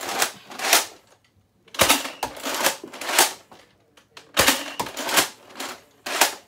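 A spring-powered Nerf sniper blaster being cocked and fired repeatedly: a run of sharp mechanical clacks and air bursts, about nine in all, some in quick pairs.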